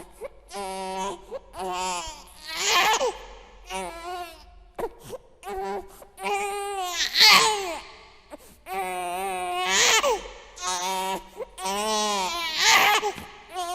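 An infant crying in a string of wailing cries, each about a second long and some rising then falling in pitch, broken by short catches of breath.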